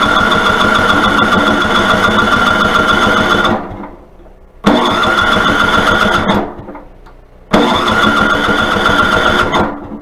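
Toro snowblower's electric starter cranking the engine in three long bursts, each whining up in pitch and then turning over steadily, without the engine catching: the engine is not getting fuel, as the owner found.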